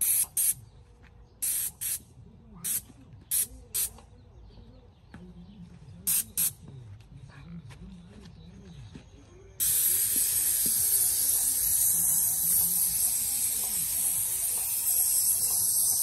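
Paint spray gun hissing as paint is sprayed, first in about nine short bursts as the trigger is pulled and released, then a steady continuous spray from a little past halfway.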